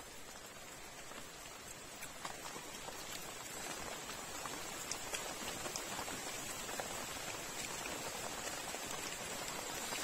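Steady rain falling, an even hiss with many small scattered drip ticks, getting a little louder over the first few seconds.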